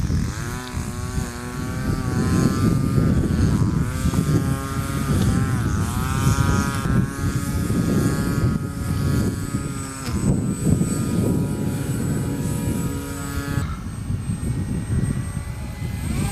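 Electric motor and pusher propeller of a foam RC MiG-29 jet running, its whine rising and falling again and again with the throttle. The pitch changes about two-thirds of the way through.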